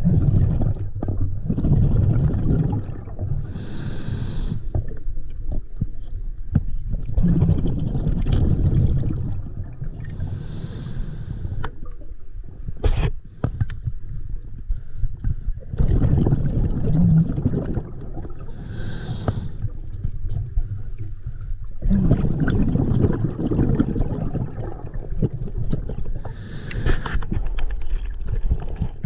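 Scuba diver breathing through an open-circuit regulator, heard at the mask: about four breath cycles, each a few seconds of low bubbling rush followed by a short hiss.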